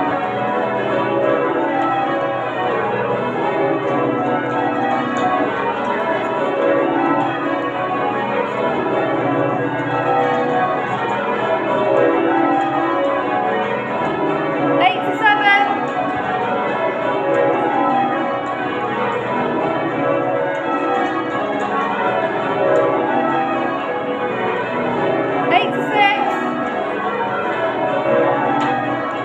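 The ring of twelve church bells at St Mary Redcliffe, Bristol, rung full-circle in change ringing, the strokes following one another in an unbroken, even rhythm.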